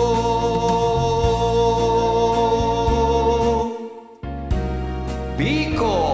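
The closing bars of a karaoke pandanggo song: the backing music and the singer's voice hold a long final note that cuts off about four seconds in. After a short gap the music comes back with a quick run of sweeping, gliding tones near the end.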